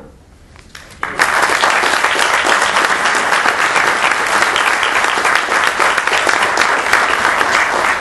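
An audience applauding, many people clapping at once. The applause starts suddenly about a second in and stays loud and steady.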